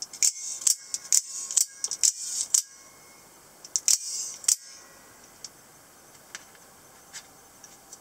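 Out-the-front spring-driven automatic knife with a double-edged blade, cycled out and back into its handle. It gives a quick run of sharp metallic clicks and snaps with sliding scrapes between them for about two and a half seconds, then another short cluster of snaps at about four seconds, and a few faint ticks after that.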